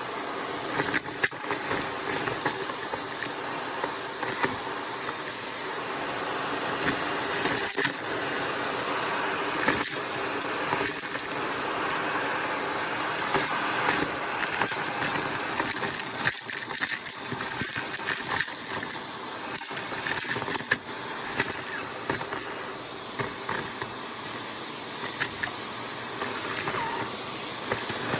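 Vacuum cleaner running through its crevice tool, a steady motor noise with irregular clicks and rattles as small hard debris is sucked up and crunches through the tool.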